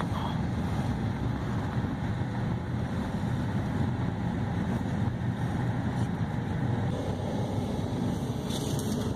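Steady road and engine drone inside a moving vehicle's cabin.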